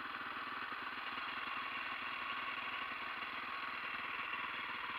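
Dirt bike engine idling steadily.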